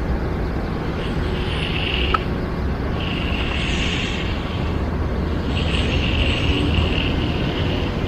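Magnesium float sliding across wet, freshly poured concrete, making three or four long scraping swishes about a second and a half apart as the surface is magged smooth. A steady low engine rumble runs underneath.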